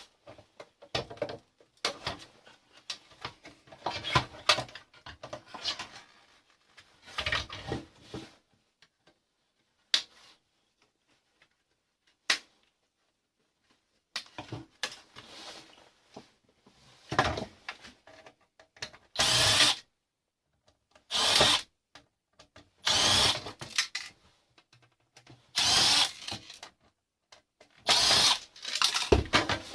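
A power drill run in short bursts while an alarm controller box is being dismantled: about six bursts of roughly a second each in the second half, a couple of seconds apart. Before them come scattered rattling and handling noises and a couple of single clicks.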